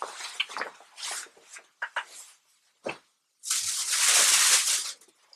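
Cloth rustling as a shirt is handled and folded, with scattered soft rustles, then a louder, longer rustle of about a second and a half near the end as the garment is put down beside the seat.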